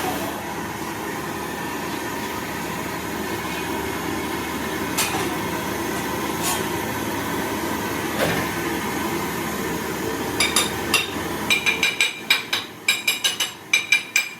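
Rapid series of sharp metal-on-metal strikes with a ringing tone, a few times a second near the end, after a few single knocks over a steady background hum.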